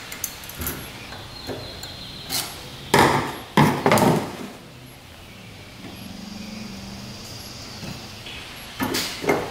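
Metal parts of a small outboard engine's pull-start recoil starter clicking and knocking as they are worked into place by hand. A cluster of loud knocks comes about three to four seconds in, and a pair of sharper ones near the end.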